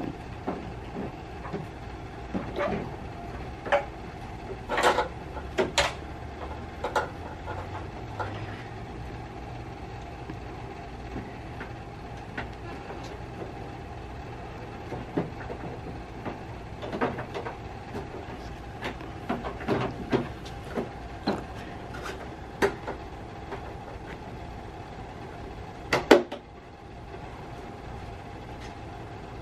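Scattered plastic clicks and knocks from handling and fitting a car's trunk-lid tail light and its hardware, over a steady background hum. The sharpest knock comes near the end.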